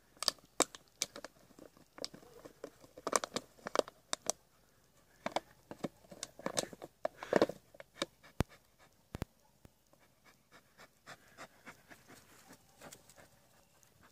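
A dog crunching an empty plastic 7up bottle in its teeth: sharp crackling bursts of the plastic, with the dog panting. The crackles thin out to faint clicks over the last few seconds as the dog carries the bottle away.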